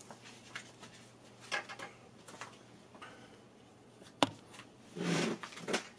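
A person moving into place close to the camera: scattered faint ticks and rustles, a sharp click a little past four seconds in, and a louder rustle about five seconds in.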